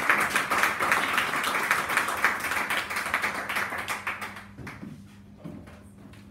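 Small audience applauding, the clapping fading out about four and a half seconds in.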